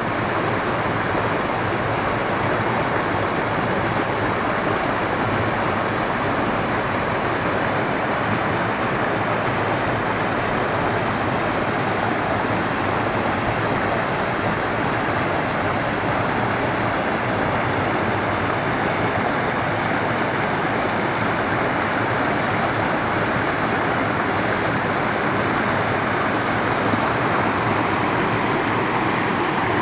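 Water rushing and splashing over rocks, a steady unbroken wash of noise with no distinct wave surges.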